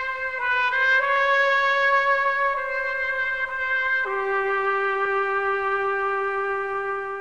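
Outro music sting: a trumpet-like brass horn holds a long note, wavers through a couple of short pitch changes in the first second, then steps down to a lower note about four seconds in and holds it.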